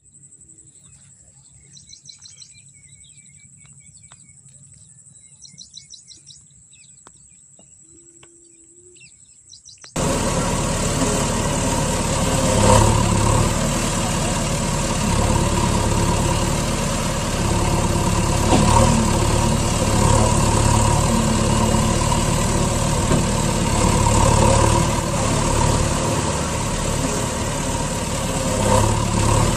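Birds chirping a few times over a thin, steady high tone, then about ten seconds in a loud heavy truck engine cuts in suddenly and keeps running at idle with a deep hum.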